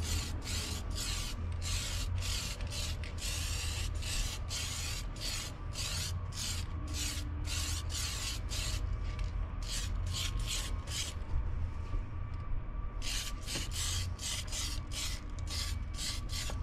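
Aerosol spray can of white polycarbonate (Lexan) paint hissing in short, rapid bursts, about two a second, with a brief pause about two-thirds of the way through.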